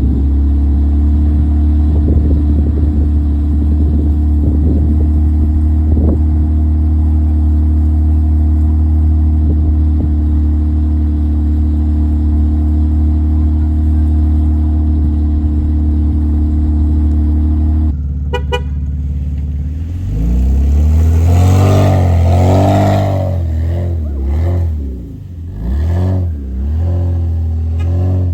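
Vehicle engine running at a steady drone. About eighteen seconds in, the sound changes: a brief rapid run of clicks, then the engine revs up and down several times.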